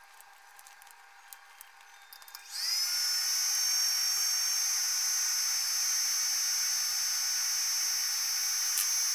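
A small electric motor whines steadily. It starts about two and a half seconds in, rises briefly in pitch, then holds one high, steady whine until it cuts off suddenly at the end.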